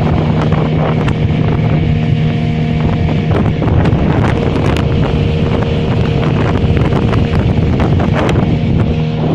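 A boat's engine running at a steady speed, a constant drone, with wind rushing over the microphone and a few sharp knocks in the middle.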